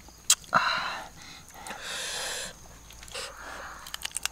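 Breathy mouth sounds of people eating: noisy breaths in and out through the mouth between bites, with a sharp click near the start.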